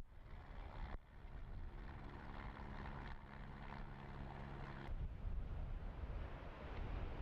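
Low wind rumble on the microphone, with a steady engine hum from about two seconds in that stops near five seconds.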